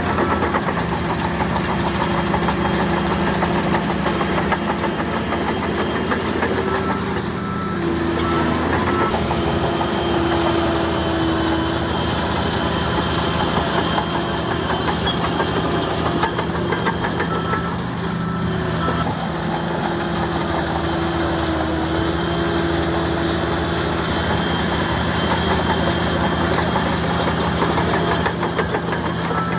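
Bulldozer's diesel engine running steadily, with a whining tone that comes and goes.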